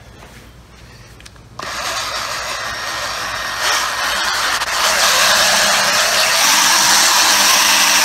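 A small 12-volt polishing machine switches on about one and a half seconds in and runs, its buffing pad working compound over painted motorcycle bodywork. It grows louder in steps over the next few seconds, then runs steadily.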